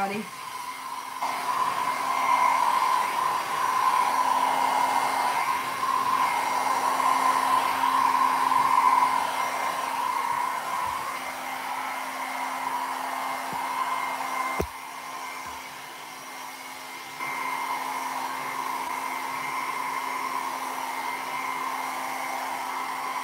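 Small handheld travel hair dryer running steadily, blowing wet alcohol ink across a board: a whirring motor hum under rushing air. Its level drops after a short click about fourteen and a half seconds in, then comes back up about three seconds later.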